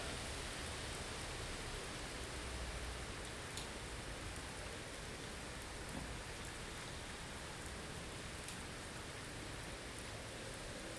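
Blizzard ambience: a steady, even hiss of wind-driven snow with a low rumble beneath, and a few faint scattered ticks.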